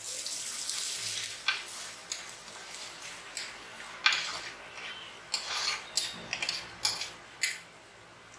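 Kudam puli (Malabar tamarind) water poured into a hot pan of sautéed onions, hissing as it hits the oil and fading over a second or so. A steel spoon then stirs and scrapes against the pan with a run of clicks.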